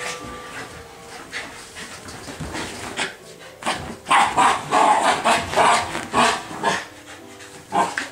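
Shiba Inu dogs at play, one giving a quick series of short vocal bursts, about three a second, that start about halfway through and stop shortly before the end.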